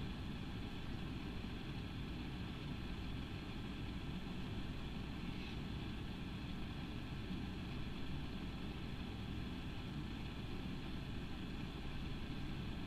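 Steady low background rumble of room noise with faint steady high tones above it, unchanging throughout.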